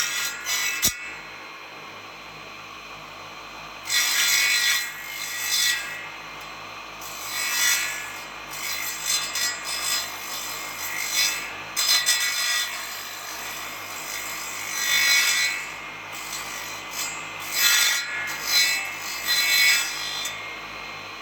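An abrasive hand tool rubbing across teak wood in short, irregular strokes, each lasting about half a second to a second, with brief pauses between them.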